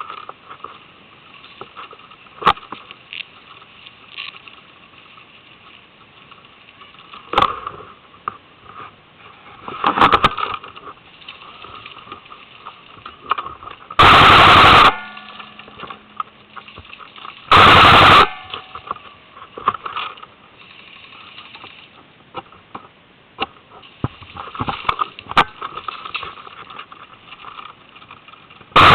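Airsoft guns firing: scattered shots, then two very loud, clipped bursts of automatic fire of under a second each, a few seconds apart, about halfway through.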